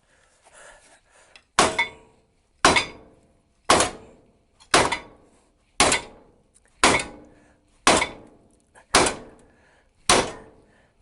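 Hammer blows on the car's suspension parts, nine sharp strikes at a steady pace of about one a second, each ringing briefly, as the assembly is knocked downward.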